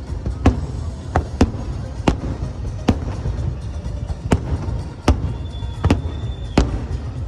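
Fireworks going off: about nine sharp bangs at irregular intervals over a steady low rumble. A single high steady tone sounds for about a second near the end.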